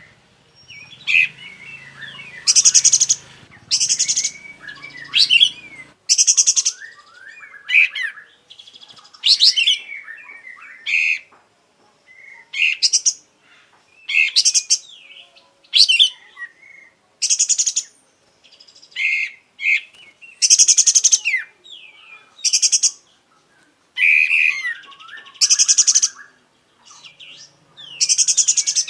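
Kapas tembak (sooty-headed bulbul) singing continuously. Loud, harsh, rapid rattling bursts come about every one to two seconds, with quick chirps and short whistled phrases between them.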